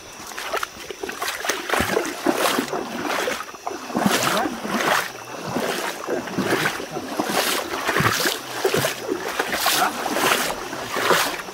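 Someone wading through river water, which sloshes and splashes in repeated surges, about one or two a second.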